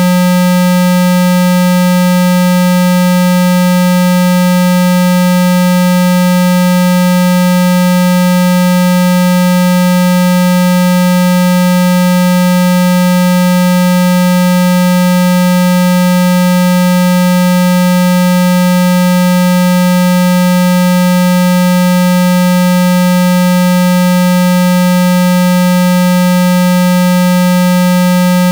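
Synthetic 195 Hz water-eject tone: a loud, steady low hum with fainter higher overtones, held unchanged throughout. It is meant to vibrate water out of a phone's speaker.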